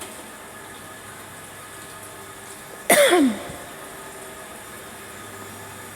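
A single short cough or throat clear about three seconds in, its pitch dropping, over a steady background hum.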